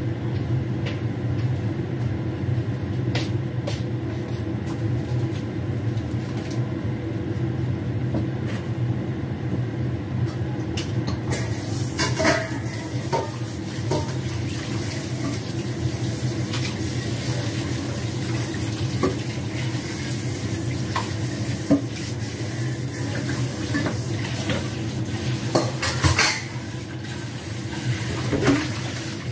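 Dishes, pots and utensils being handled at a kitchen counter: scattered knocks and clinks, the loudest about twelve seconds in and near the end, over a steady low hum.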